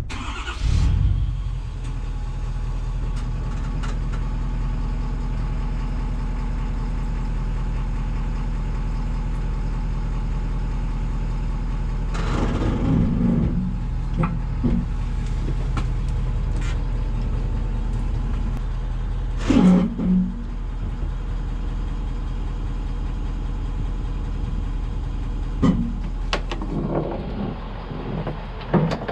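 Pickup truck engine running steadily as the truck pulls slowly forward out from under a fifth-wheel trailer's pin box, unhitching it. Two louder clunks come partway through, about twelve and twenty seconds in.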